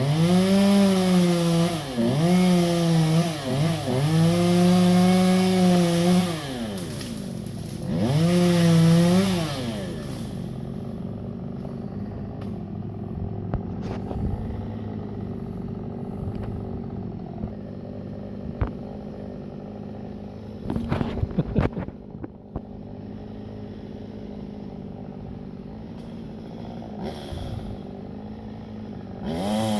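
Chainsaw revving hard in several bursts, its pitch climbing and dropping, then settling to idle after about ten seconds. A quick run of sharp knocks comes about two-thirds of the way through.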